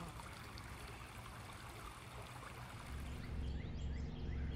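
Shallow creek running over rocks, a steady rush of water. About three seconds in it gives way to a low rumble with faint chirps.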